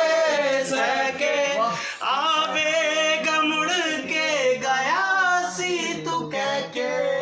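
Men singing a song unaccompanied, with long held notes that waver in pitch.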